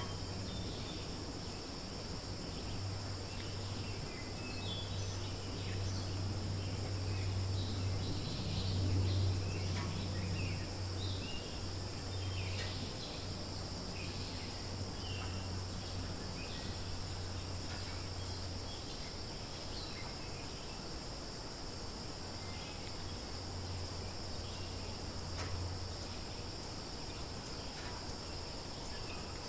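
Outdoor ambience: a steady high-pitched drone of insects, with scattered short chirps and a low steady hum underneath.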